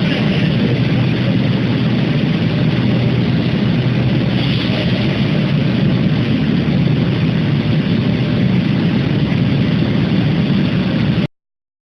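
Steady drone of industrial machinery, heaviest in the low range, from a piston rod induction heating line at work. It stops abruptly near the end.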